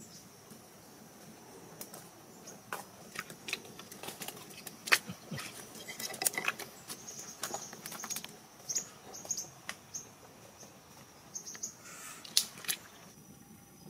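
Irregular clicks, rustles and squelches from rubber boots stepping in wet mangrove mud and from handling a nylon net crab trap. A steady high insect buzz runs behind them.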